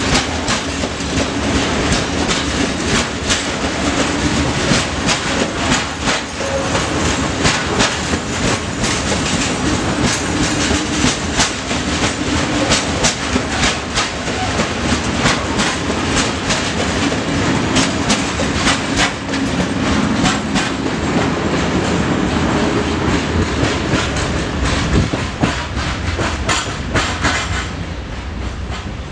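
Freight train of open-top goods wagons rolling past at speed: a steady rumble of wheels on rail with a fast clickety-clack of the wheels over the rail joints. The noise drops near the end as the last wagons pass.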